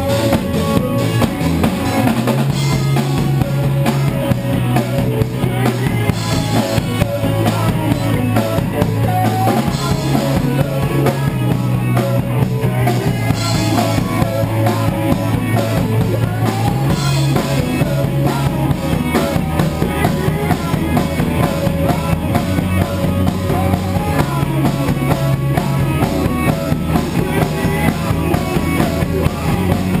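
Live band playing: a drum kit keeping a steady beat under low held bass notes that shift every few seconds.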